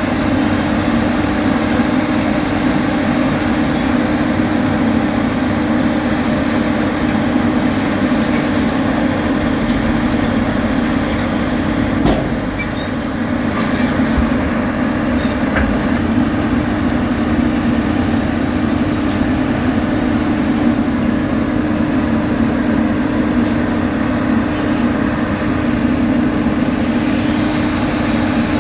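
Heavy diesel road-construction machinery, such as an asphalt paver, running steadily under load with an even drone, and one brief click about halfway through.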